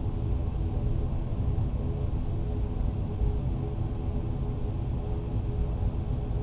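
Cabin noise of an ATR 72-500 turboprop heard from a seat beside the engine: the Pratt & Whitney PW127 engine and propeller running steadily, a deep rumble with a stack of steady propeller tones.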